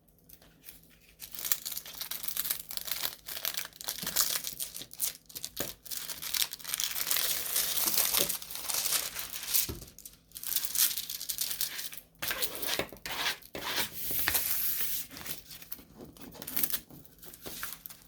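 Packaging being torn open and crinkled by hand, in a long run of irregular rustling and ripping strokes with short pauses.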